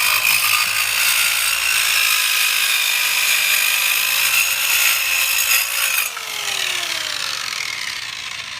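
A GALAX PRO 4-amp mini circular saw with a 4-1/2 inch carbide-tipped blade cutting through wood, with a steady high tone over a dense rasp for about six seconds. Then the level drops and the motor's pitch falls as it winds down.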